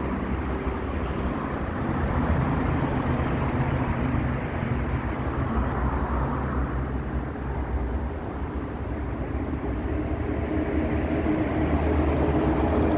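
GT22CW-2 diesel-electric locomotive running steadily with its train, its engine giving a low, even drone over a broad rumble.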